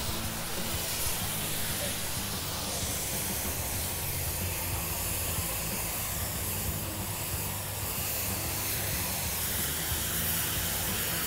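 Steady hiss of water spraying from a hose onto a sidewalk, over a low street rumble.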